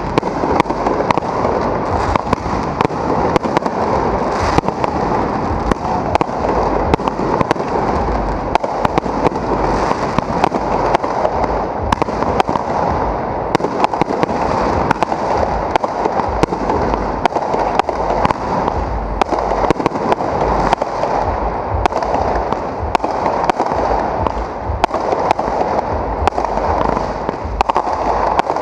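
Aerial fireworks going off close by in quick succession: dense sharp bangs and crackling with no break, over a continuous rumble of bursts.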